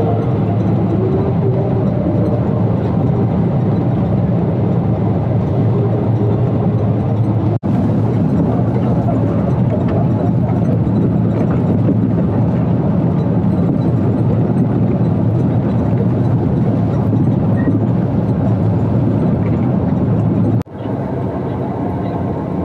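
Steady drone of an intercity bus's engine and road noise, heard from inside the passenger cabin while under way. It breaks off abruptly twice and is a little quieter after the second break.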